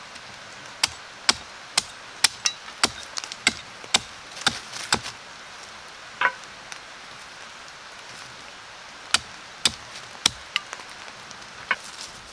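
Small hand blade chopping into the end of a green sapling stake held on a stump, cutting it to a point: sharp wooden cracks about two a second, a pause, then a few more strokes near the end.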